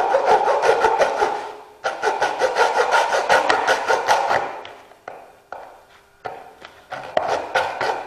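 A small hacksaw blade, held bare in the hand, sawing through the corner of a thin plastic food container in quick back-and-forth strokes. There is a brief pause about two seconds in, the sound dies down about five seconds in, and then it starts again in short runs.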